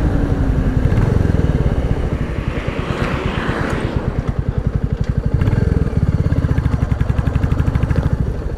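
Royal Enfield Classic 350's air-cooled single-cylinder engine running at low revs as the motorcycle slows, with an even, rhythmic thump. It grows quieter about two to four seconds in as the throttle closes.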